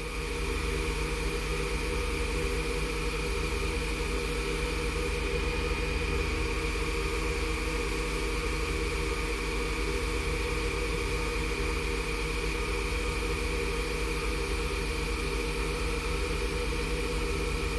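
Wood lathe motor running steadily at a turned-down speed, a constant hum with an even hiss, while wax is worked onto the spinning padauk.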